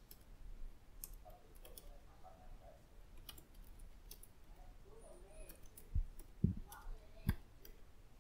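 Computer keyboard typing: scattered key clicks at a slow, irregular pace, with three dull thumps about six to seven seconds in.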